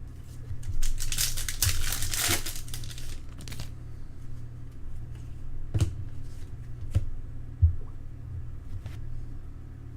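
A trading-card pack's wrapper crinkling and tearing open for about two seconds, then a few light knocks as the cards are handled.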